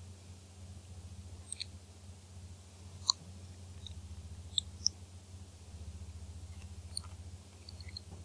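A steady low electrical hum runs throughout, with about a dozen brief, sharp high-pitched ticks scattered over it. The loudest tick comes about three seconds in and two more come between four and five seconds.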